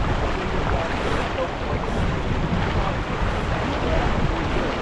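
Wind buffeting the microphone over the rush of water along a sailing yacht's hull as it sails under way, a steady rumbling noise.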